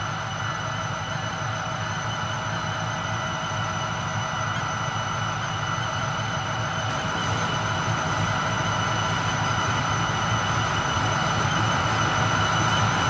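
Diesel-electric freight locomotives running with a steady low engine hum and a steady whine, slowly growing louder as the lashup approaches.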